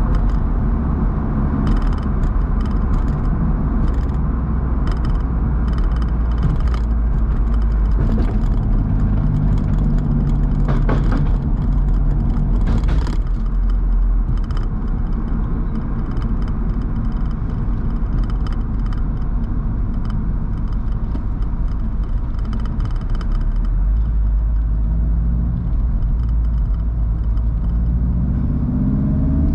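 BMW roadster on the move, heard from on board: a steady low rumble of engine, tyres and road, with occasional light ticks. Near the end the engine pitch rises as the car accelerates.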